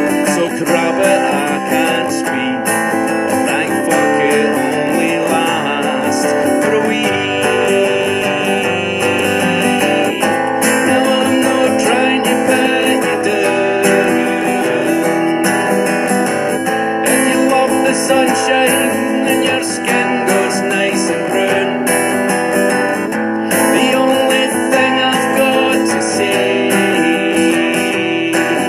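Acoustic guitar strummed steadily while a man sings along into the microphone.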